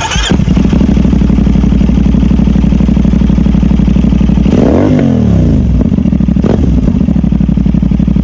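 CFMOTO 450SR's parallel-twin engine idling through an SC Project aftermarket exhaust. About halfway through there is one quick throttle blip that rises and falls in pitch before the bike settles back to idle.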